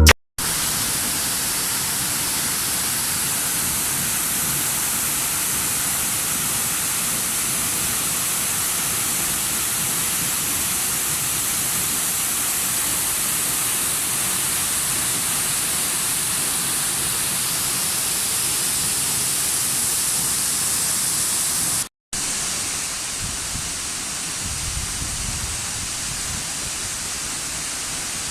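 Waterfall: the steady, even rush of falling water. It breaks off for a moment about three quarters of the way through and continues slightly quieter.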